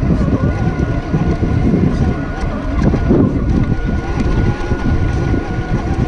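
Onboard sound of an RC4WD Trail Finder 2 scale RC truck crawling through a muddy, rocky ditch, recorded by a GoPro on its roof: a steady high whine from its electric motor and gearing over a constant rumble of wind noise and jostling on the mic.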